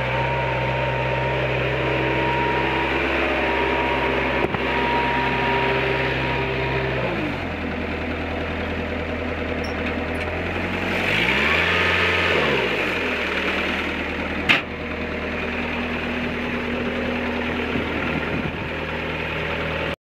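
1999 Bobcat 763 skid steer's four-cylinder diesel engine running steadily, dropping to a lower speed about a third of the way in. About halfway through it revs up briefly and settles back down, followed a couple of seconds later by a single sharp click.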